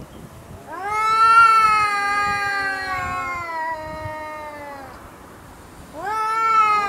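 Cats in a close standoff yowling at each other: a long drawn-out threat call about four seconds long, rising sharply then slowly sinking in pitch, and a second one starting near the end. This is the growling match of two cats squaring up before a fight.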